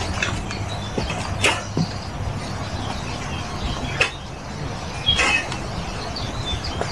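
Footsteps on a wooden boardwalk: a few separate knocks of shoes on the planks over a steady low hum. A short chirp comes about five seconds in.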